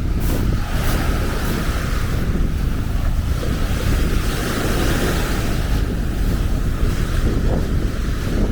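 Wind buffeting the microphone, with small waves washing onto the beach beneath it as a steady hiss.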